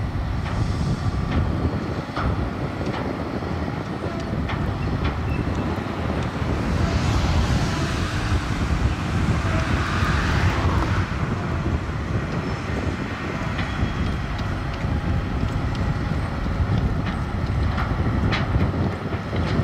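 Grab dredger's crane working: a steady low engine-and-winch rumble with scattered metallic clanks, and a rushing hiss that swells for a few seconds in the middle.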